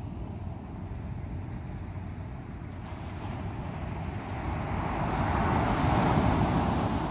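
Ocean waves breaking on the shore, a steady low rush that swells to a loud crash about six seconds in, with wind on the microphone.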